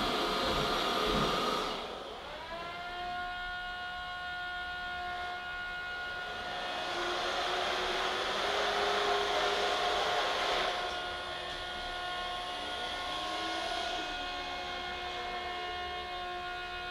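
Vorwerk Kobold VR200 robot vacuum running: its motor whine rises about two seconds in and then holds steady, over a hiss of air and brushes that is louder in the middle.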